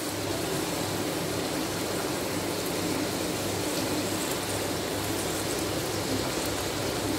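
Okra deep-frying in hot mustard oil: a steady sizzle of bubbling oil as the coated okra turns crisp and golden.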